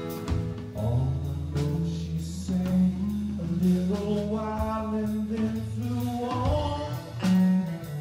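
Live band music: electric guitar played over a drum kit, with drum and cymbal hits and a held low note under it.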